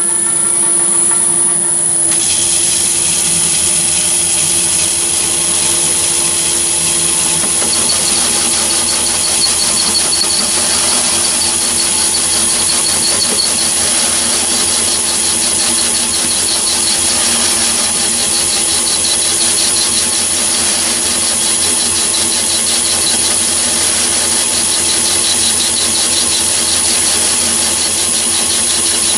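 Myford ML7 lathe running steadily while turning down the diameter of a 20mm bolt for a pulley seat, with a steady high whine.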